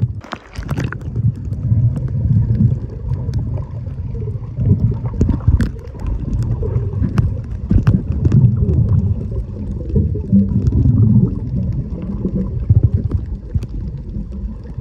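Muffled water sound from a camera held underwater while snorkeling: a steady low rumble of moving water sprinkled with many sharp little clicks and crackles.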